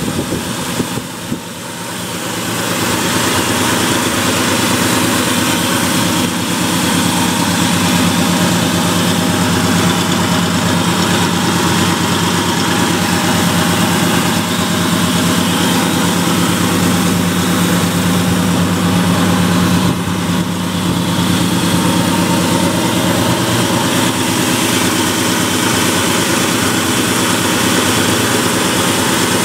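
1970 Dodge D100's 318 cubic-inch V8 idling steadily, heard close at the open engine bay.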